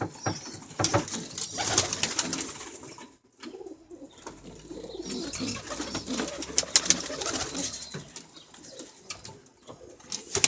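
Homing pigeons cooing in a loft, with scattered clicks and scuffles of birds moving around.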